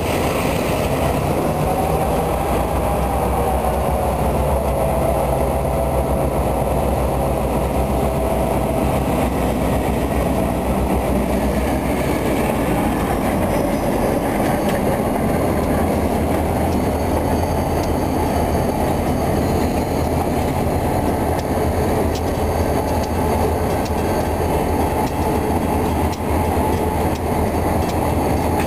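Diesel-electric locomotives rolling slowly past at close range, their diesel engines running steadily, with the faint clatter of wheels on rail.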